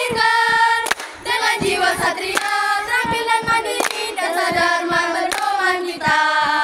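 A group of girls singing a scout cheer song (yel-yel) together in unison, clapping their hands along with the song.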